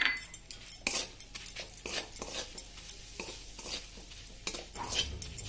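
Steel spoon stirring and scraping ground spices frying in oil in a metal pan: irregular scrapes and clinks of metal on metal, several a second, over a light sizzle.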